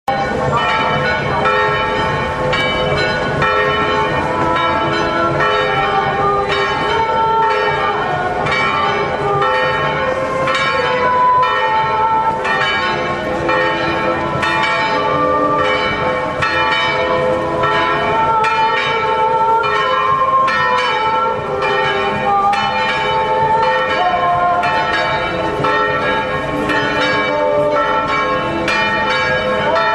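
Church bells pealing: several bells of different pitch struck in quick, unbroken succession, their tones overlapping and ringing on.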